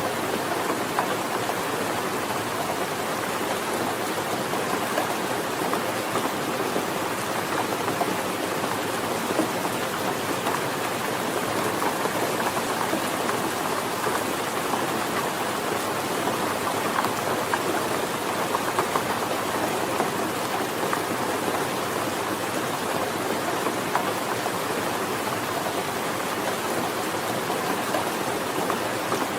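Steady rainfall: an even hiss of rain with many small drop ticks, unchanging in strength.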